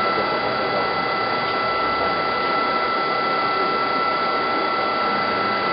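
Jenn Wei JW-42B3M CNC lathe running with its live-tool servo turret: a steady high whine over a dense mechanical whirr.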